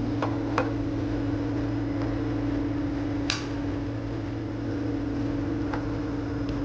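A steady mechanical hum with a constant low tone, and a few light taps of a utensil on a wooden cutting board, the sharpest about three seconds in.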